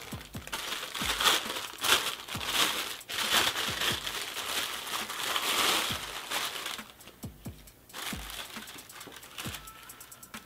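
Clear plastic packaging bag crinkling and rustling as snow goggles are unwrapped from it, dying down to fainter handling crackles about seven seconds in.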